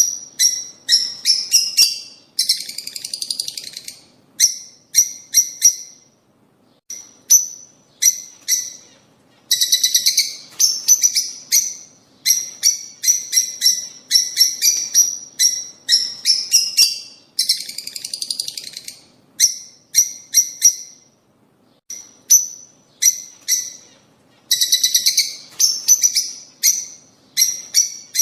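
Lovebirds calling: quick runs of sharp, high chirps, broken every seven or eight seconds by a longer, buzzy chatter.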